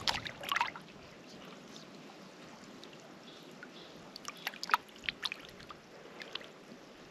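Water dripping and splashing in small, sharp spatters: a cluster in the first second, another about four to five seconds in, and a few more near the end.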